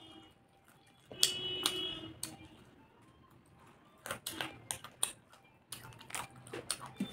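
Close eating sounds: wet lip smacks and chewing clicks from a mouth eating chicken, in quick clusters about a second in, around four to five seconds in, and near the end.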